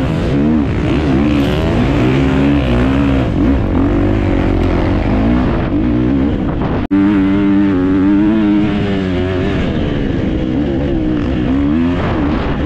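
Off-road motorcycle engine revving hard, its pitch climbing and dropping again and again as the rider works the throttle and gears. The sound cuts out for an instant about seven seconds in.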